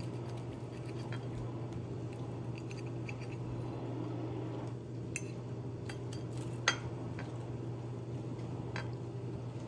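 Metal fork scraping and tapping against a ceramic plate while cutting through fried egg on toast, with a few sharp clinks in the second half. A steady low hum runs underneath.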